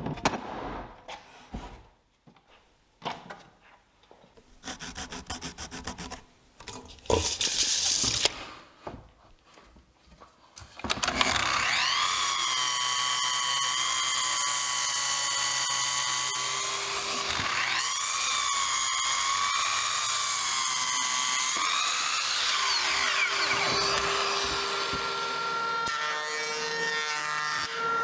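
Knocks and thuds of a rough wooden slab being handled on a workbench. From about eleven seconds in, a Festool sliding miter saw runs loud and steady, its motor whine bending in pitch as the blade cuts through the slab. Near the end the whine gives way to a steadier hum.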